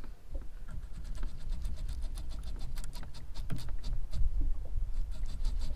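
A fishing reel clicking as line pays out to let the lure back down deep, the ticks coming faster from about two seconds in, over a steady rumble of wind on the microphone.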